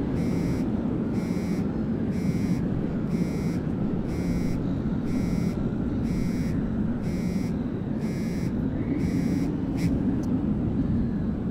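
A mobile phone ringing unanswered: its ringtone beeps in short bursts about once a second and stops about nine seconds in. Under it runs a steady low drone.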